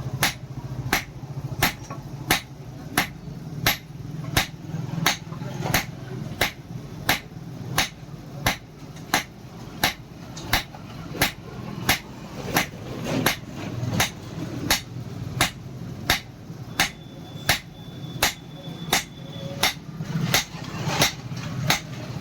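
Hammer striking iron on an anvil in a steady rhythm, about two blows a second, over a steady low hum.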